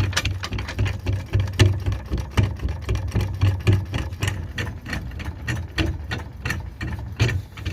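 Hand ratchet wrench clicking in quick, uneven runs while loosening exhaust bolts, with metallic rattles and knocks mixed in.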